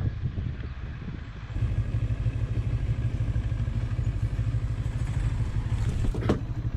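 Motorcycle engine running at low speed in traffic, a steady low rumble with wind noise on the rider's camera microphone. A short sharp knock comes near the end.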